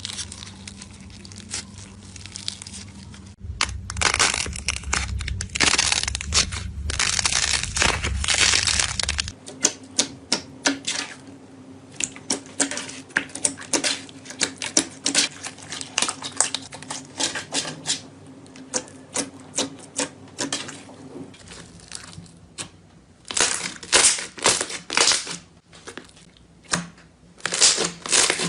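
Slime being squeezed and pressed by hand: dense crackling and popping clicks in bursts, loudest from about three to nine seconds in and again near the end, with sparser clicking in between.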